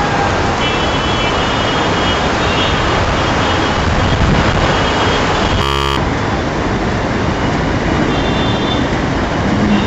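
Heavy rain pouring in a steady hiss, with faint distant car horns now and then. A short buzz-like glitch cuts in about six seconds in.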